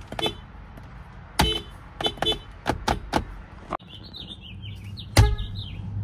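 Nissan Rogue horns tapped in short beeps: a run of about seven quick honks, then an abrupt change to a newer Rogue with birds chirping in the background and one louder honk near the end.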